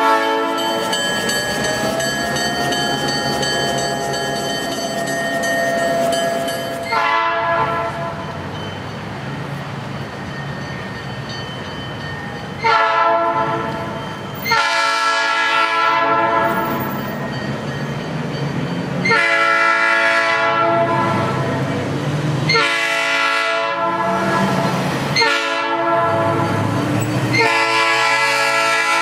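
Diesel locomotive air horn sounding a series of loud, chord-like blasts of one to three seconds each, starting about seven seconds in, as a warning while the train runs along the street through road crossings. Before the blasts there is a steadier held chord.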